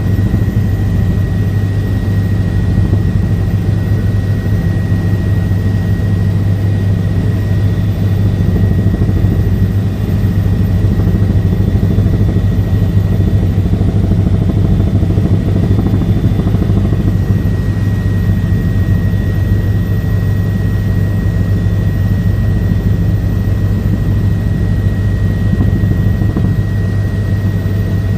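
Helicopter in flight as heard from inside the cabin: a loud, steady low drone from the rotor and engine with a thin, steady high whine above it.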